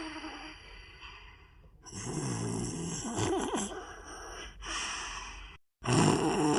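Cartoon dog snoring and breathing in its sleep, sped up and pitched up as a nightcore edit. Slow breaths swell and fade away, with a short total dropout shortly before the end, after which a louder snore starts.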